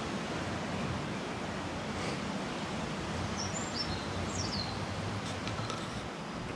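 River water flowing steadily, with a few brief high bird chirps a little past the middle.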